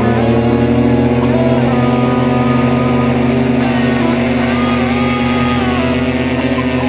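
Tandem paramotor trike's engine and caged propeller running steadily at full power during the takeoff roll, with music playing alongside.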